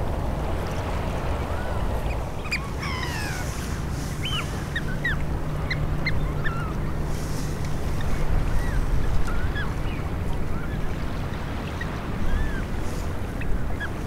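Birds calling: many short, clear, high notes that bend up and down, starting a couple of seconds in and thinning out near the end. Under them runs a steady low rumble of wind and water, with a faint low hum for a few seconds.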